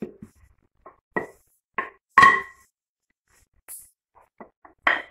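A series of about six sharp knocks and taps from a wooden rolling pin and rounds of dough handled on a tiled floor, the loudest a little past two seconds in, some with a brief ringing tone.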